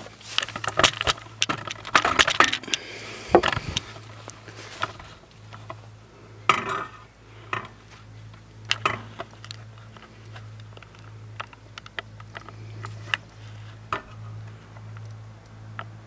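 Metallic clinks and knocks from a steel band blade being handled and fitted onto the wheels of a portable bandsaw mill, thickest in the first few seconds. A steady low hum runs underneath.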